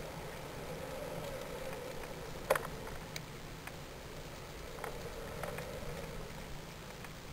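Steady hiss and low hum picked up by a camera riding on a high-altitude balloon's flight string, with a few sharp clicks or knocks from the payload, the loudest about two and a half seconds in.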